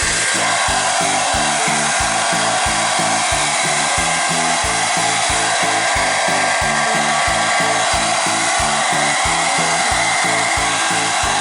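Hand-held hair dryer blowing steadily, drying the wet fur of a plush toy after washing, with rhythmic background music under it.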